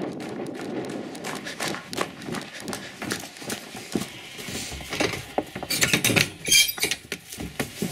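Running footsteps on a straw-covered barn floor with the camera jostling, then clicks and rattles of a metal wire dog-crate door being unlatched and opened, with a short high squeal near the end.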